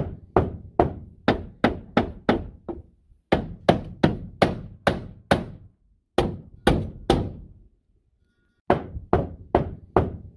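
Hammer blows driving nails, about two to three sharp strikes a second in steady runs, with a break of about a second near the three-quarter mark.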